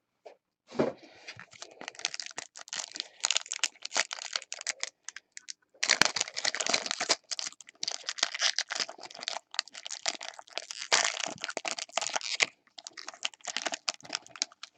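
A foil trading-card pack wrapper being torn open and handled: dense crinkling and crackling in long stretches, broken by short pauses.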